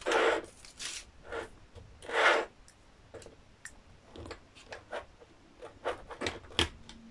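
Small plastic bags of round resin diamond-painting drills rustling, twice loudly (near the start and about two seconds in), then light clicks and taps as a small plastic drill pot and a plastic drill tray are handled.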